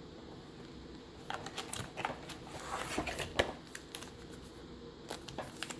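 Baseball trading cards being handled and slid through by hand, a run of quick clicks and rustles starting about a second in, with a few more near the end.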